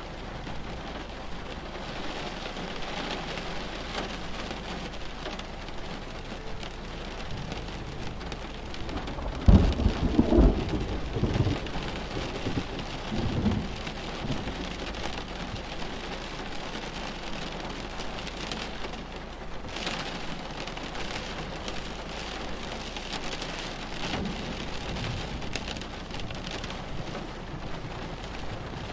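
Thunderstorm: steady rain falling, with a loud thunderclap about ten seconds in that rumbles on for a few seconds before fading back under the rain.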